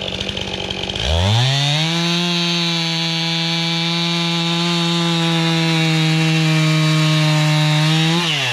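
Two-stroke chainsaw revved up from idle about a second in and held at a steady high pitch for about seven seconds, as when bucking a log into firewood rounds, then dropping back toward idle near the end.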